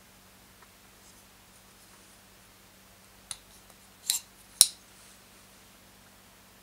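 Raiser Beast folding knife with a ball-bearing pivot being closed by hand: a light click about three seconds in, a louder double click just after four seconds, and a sharp metallic snap about half a second later as the blade shuts into the handle.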